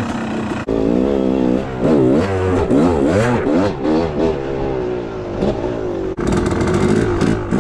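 Dirt bike engine on the trail, revving up and falling back again and again as the throttle is worked, with sudden breaks about a second in and near the end.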